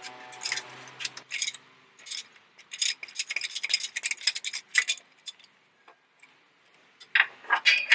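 Ratchet wrench clicking in quick runs as the socket unscrews the knock sensor from the engine block, with a few metallic clinks.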